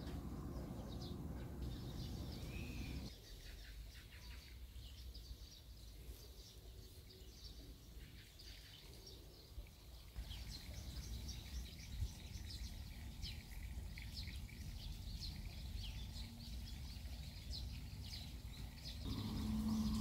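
Small birds chirping in short, repeated calls over a low outdoor rumble. The background noise changes abruptly a few times.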